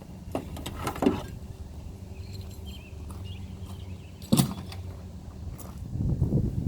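Two sharp knocks, about a second in and again some three seconds later, over a steady low hum; a rougher rumble rises near the end.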